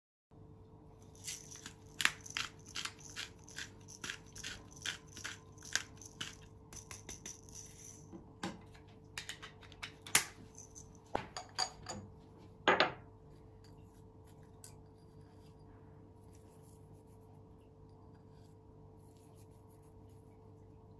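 Disposable pepper grinder bottle twisted by hand, black peppercorns cracking in a quick run of sharp clicks for several seconds. A few scattered clicks and a sharp double knock follow, then only a faint steady hum.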